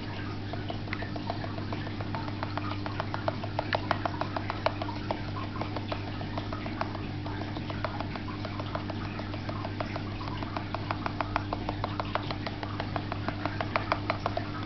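Steady electric hum of a mains-powered aquarium filter. Over it runs a rapid, irregular patter of small clicks and ticks, several a second, which comes and goes in thicker stretches.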